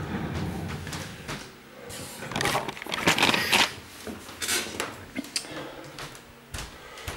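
Handling noises: irregular rustling, scraping and clicking of small objects being moved about and set down, busiest a little before the middle, with a couple of sharp knocks near the end.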